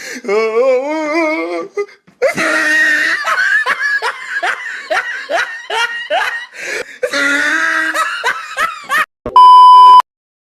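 Laughter: a wavering, pitched laugh, then a long run of rapid laughing bursts at about two or three a second. Near the end comes a short, very loud steady beep tone, cut off abruptly.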